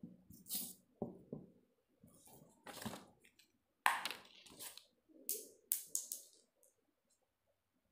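Cardboard and paper being handled and a glue stick being used on the cardboard: scattered short rustles and scrapes with a few sharp clicks and taps.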